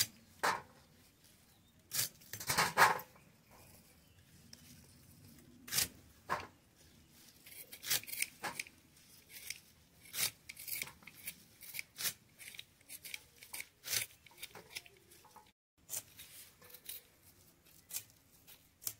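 Vegetable stalks being cut by hand: irregular crisp cutting strokes, a few louder ones in the first seconds, then a quicker run of cuts with short quiet gaps between.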